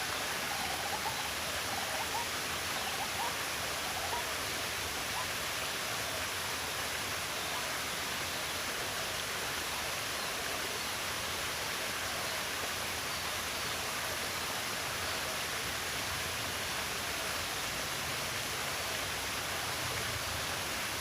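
Steady, even rushing of running water, with a few faint short bird chirps in the first few seconds.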